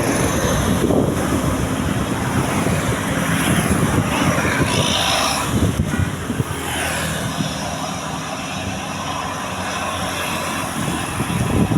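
Heavy road vehicle passing close by: steady engine and road noise, with wind buffeting the microphone.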